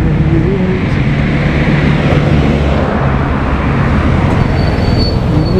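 Road traffic: motor vehicle engines running close by, a steady low engine hum under continuous road noise.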